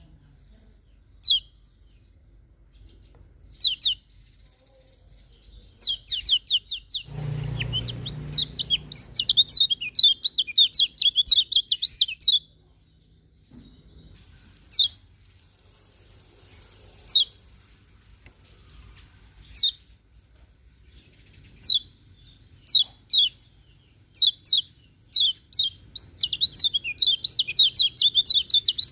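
A kecial kuning white-eye calling: short, high, down-slurred chirps spaced a few seconds apart, breaking twice into fast chattering runs. A brief low rumble comes about seven seconds in.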